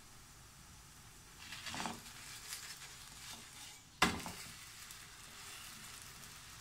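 A silicone spatula scraping under a lentil-batter crepe in a nonstick frying pan, then the crepe flipped over and slapping down onto the pan about four seconds in, with faint sizzling of the frying underneath.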